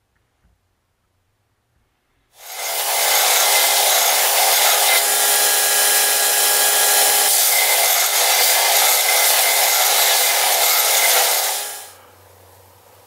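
Belt sander grinder running and grinding an aluminium part, a loud steady grinding noise with a motor tone through it. It starts about two seconds in and stops about a second before the end, leaving a faint low hum.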